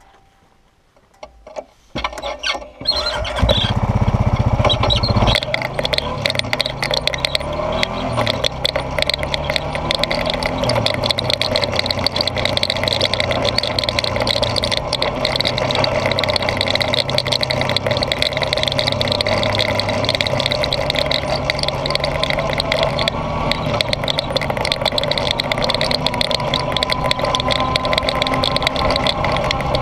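Honda ATV engine starting about three seconds in, then running as the quad drives along a rough dirt track, its pitch rising and falling with the throttle, with a high whine over it. Heard from a camera mounted on the ATV.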